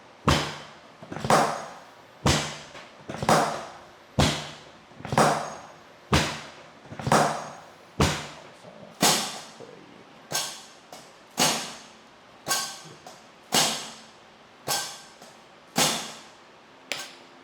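Thuds about once a second, each dying away quickly, as a patient is pushed down rhythmically on a chiropractic treatment table in a warm-up before adjustments.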